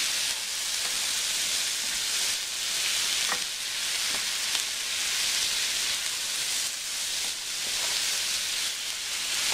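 Chopped cabbage and onion sizzling steadily as they fry in bacon grease in a skillet, stirred with a wooden spatula that taps a few times.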